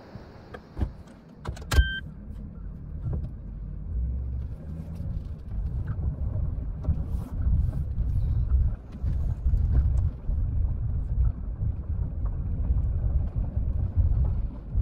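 A few clicks and a short electronic beep, then the low rumble of a car driving on a gravel road, heard from inside the cabin of a Suzuki Hustler kei car.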